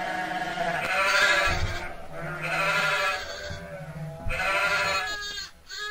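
Sheep bleating: three long, wavering bleats with short pauses between them.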